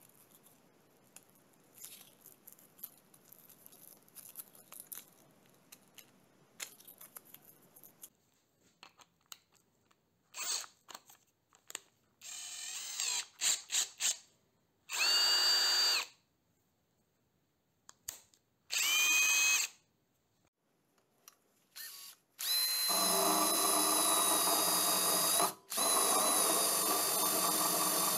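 Cordless drill with a homemade sandpaper drum attachment. It starts with faint handling clicks, then gives several short spins of about a second, some with a rising whine as the motor spins up. About two-thirds of the way in it runs steadily with the drum sanding a wooden plank, with one brief stop near the end.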